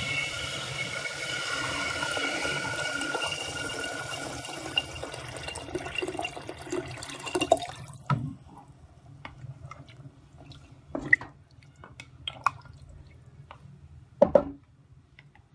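Water poured from a jug into an aluminium pressure cooker of chickpeas in masala, a steady pour that stops about eight seconds in. Then a wooden spatula stirs the pot, knocking against the cooker a few times.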